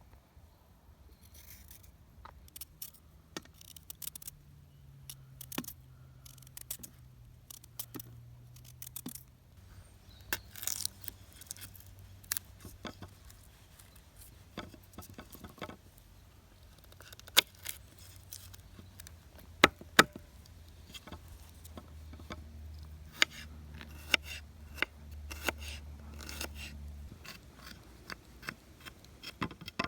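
Irregular sharp clicks, snaps and scrapes of hand work, loudest around the middle and toward the end, over a faint low hum that shifts pitch in a few steps.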